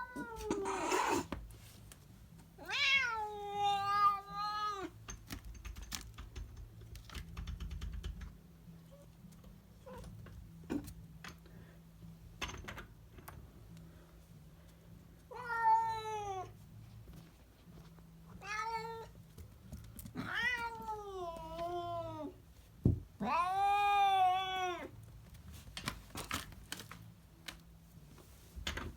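Domestic cat meowing: about five long, drawn-out meows, each sliding down in pitch. One comes a few seconds in and the rest come in the second half, with faint light clicks in between.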